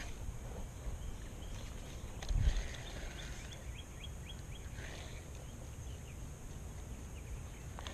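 Outdoor ambience with a steady low rumble of wind or handling on the microphone; about two seconds in, a dull bump, followed by a quick run of a dozen or so short high chirps from a small animal calling.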